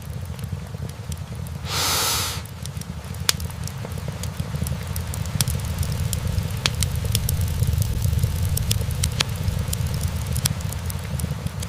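Wood fire burning in a fireplace: a low steady rumble with scattered sharp crackles and pops from the logs, and a brief louder hiss about two seconds in.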